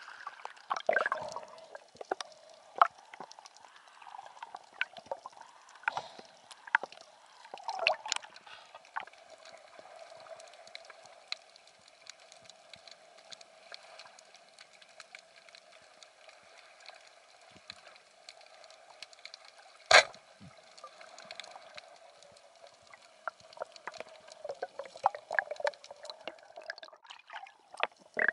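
Underwater sound heard through a camera housing: a faint, steady wash of water with many small scattered clicks and ticks, and one sharp knock about twenty seconds in.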